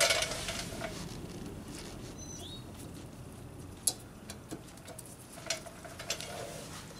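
Brake pads being pushed into a disc-brake caliper bracket's anti-rattle clips: a rustle at the start, then scattered sharp metal clicks, the loudest about four seconds in. A bird chirps briefly in the middle.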